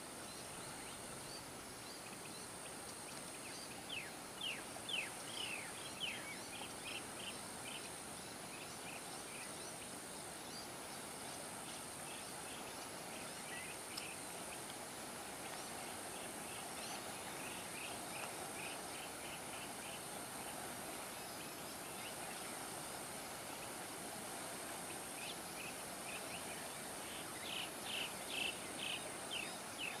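Riverside ambience: a steady wash of running river water under a constant high insect buzz. Three times, around 4 seconds in, around 17 seconds and near the end, a bird gives a rapid run of short repeated notes, about four a second.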